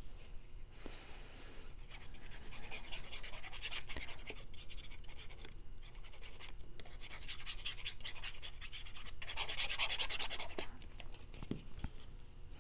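Glued paper panels being rubbed and pressed flat by hand onto a paper box: a dry, papery scratching that comes and goes in long strokes, strongest near the end, with a couple of small ticks.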